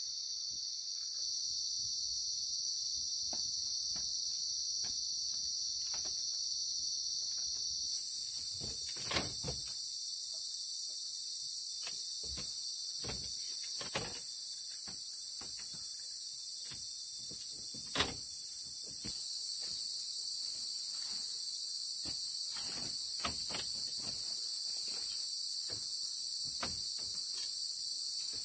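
Night chorus of crickets and other insects, a steady high-pitched drone that grows louder twice. Scattered knocks and creaks from someone moving about and handling bedding on a bamboo floor, the sharpest three falling near 9, 14 and 18 seconds in.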